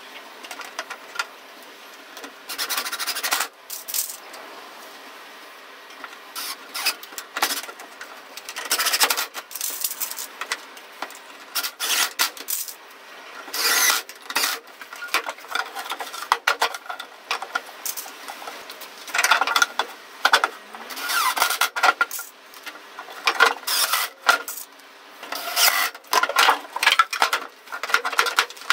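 Cordless drill-driver driving screws into a wooden box frame in repeated short bursts, with clinks and rubbing of handled screws and wood between the bursts.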